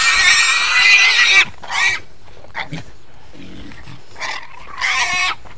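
A young tethered farm animal crying out against a rope it is not used to: one long, loud, harsh squeal, then a short cry about two seconds in and another near the end.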